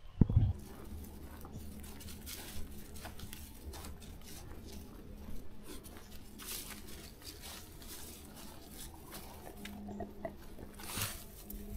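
A sharp low thump just after the start, then irregular rustling and crunching clicks.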